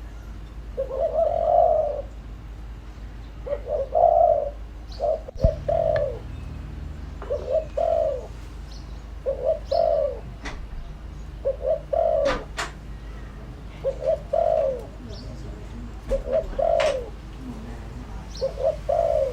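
Spotted dove cooing, a decoy bird giving its call over and over, one short phrase of several soft coos about every two seconds. A sharp click comes about five seconds in, and a few thin high chirps sound here and there.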